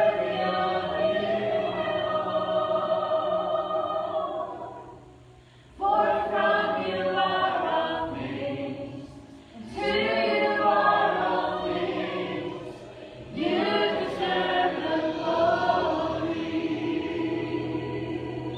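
A group of voices singing a slow song together in long held phrases, with short pauses between the phrases.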